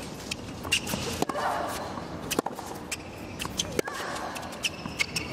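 Tennis rally on a hard court: sharp racket strikes on the ball, several in quick succession, with the players' footsteps.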